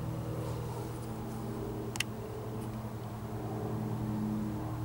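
Steady low machine hum with several pitched tones, one more tone joining about a second in, and a single sharp click about two seconds in.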